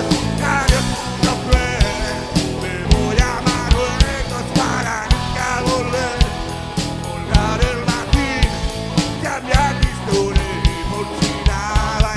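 Live rock band playing a song, with drums, bass and electric guitar under voices singing the melody, the drums beating steadily.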